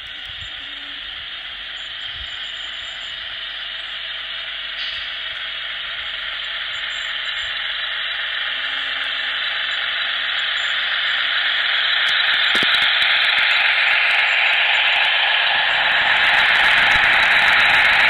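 HO-scale Broadway Limited model of a Baldwin Centipede locomotive running toward the microphone, its steady hissing running noise growing steadily louder as it draws near. A few sharp clicks come in the second half.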